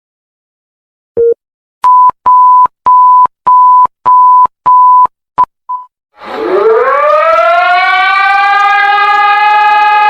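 Emergency alert tones: one short low beep, then a string of higher, evenly spaced beeps, the last few shorter. About six seconds in, a civil defense siren starts up, rising in pitch over a second or so, then holds a steady wail.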